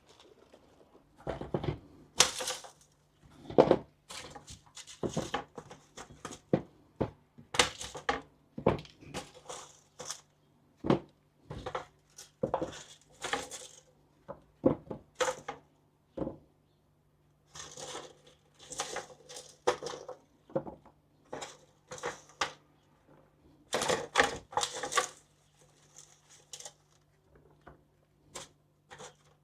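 Irregular knocks, clunks and clatter of freshly dug potatoes being handled and set down to be weighed, with a faint steady low hum behind.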